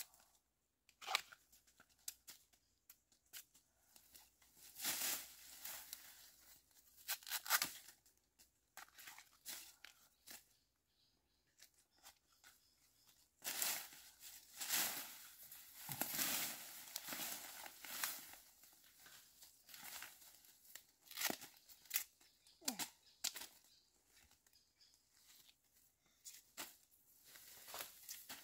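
Intermittent tearing and crinkling in short bursts with quiet gaps between, busiest around the middle.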